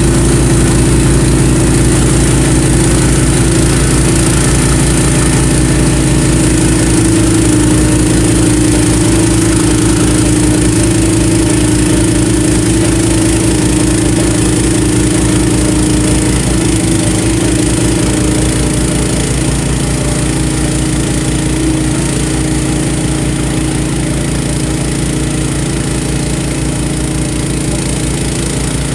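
Honda HSS1332 two-stage snowblower's single-cylinder engine running steadily under load while clearing snow. It grows a little quieter as the machine moves away.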